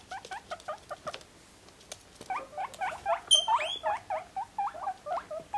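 Guinea pig squeaking: a quick run of short rising squeaks, several a second, louder from about two seconds in, with one sharper high-pitched squeal partway through. A few light clicks come in the first second.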